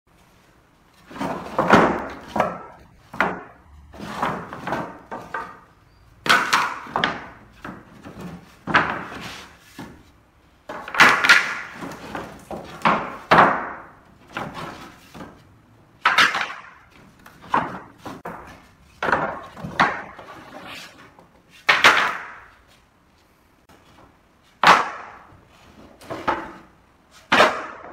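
Wooden boards clattering and knocking against each other as they are lifted from a stack and set down on a concrete floor, an uneven clatter every second or two with short quiet gaps.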